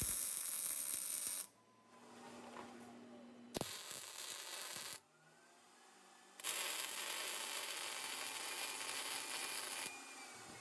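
Arc welder tacking and laying short welds on steel: three bursts of steady hissing arc noise that start and stop sharply, the last and longest lasting about three and a half seconds.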